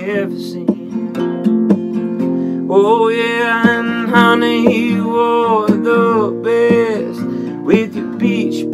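A man singing to his own steady acoustic guitar strumming; the voice comes in strongly about three seconds in.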